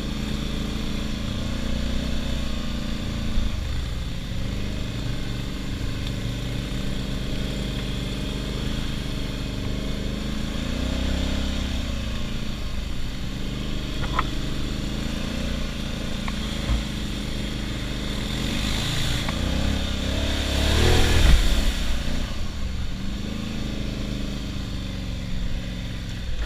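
ATV engine running under riding throttle, its pitch rising and falling as it revs and eases off. About twenty seconds in, a broad rushing noise swells to the loudest moment and then fades.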